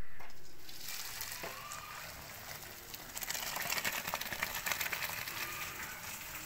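Hot pasta-cooking water and macaroni being poured from a large metal pot into a perforated steel colander, splashing and hissing through the strainer as the cooked pasta is drained. The pouring grows heavier and more spattery from about three seconds in.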